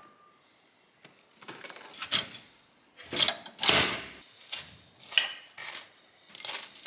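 A run of short kitchen handling noises, about eight clunks and scrapes, the loudest a little past the middle, as a bagel is toasted and a table knife spreads jam on it.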